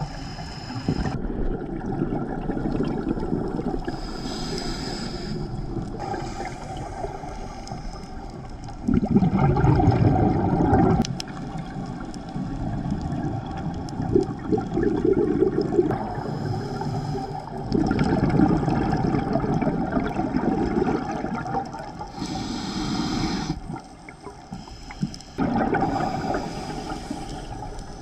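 Scuba diver breathing through a regulator underwater: about five exhalations, each a gurgling rush of bubbles lasting a few seconds, the loudest about nine seconds in, with a short hiss of inhalation between them.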